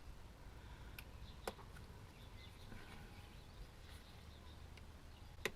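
Quiet handling noise with a few sharp clicks: one about a second in, another half a second later, and a louder one near the end.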